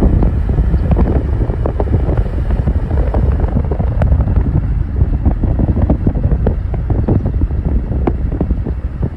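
Wind buffeting the microphone over the running noise of a moving vehicle: a heavy low rumble broken by constant small crackles.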